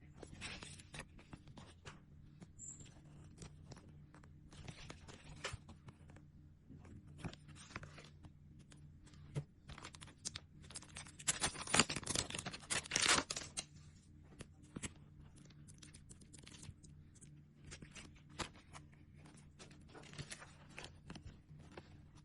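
Nail sticker sheets and their packaging handled close to the microphone: irregular crinkling, scratching and peeling sounds. A louder, denser stretch of tearing comes a little past halfway.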